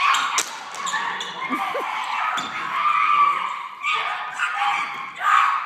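Two women screaming and shrieking as they grapple in a stage fight, loud and high-pitched, coming in several surges with short breaks between.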